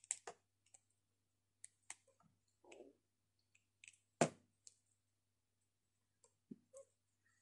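Faint, scattered clicks and taps of small plastic action-figure parts being handled and pushed into place, the loudest about four seconds in.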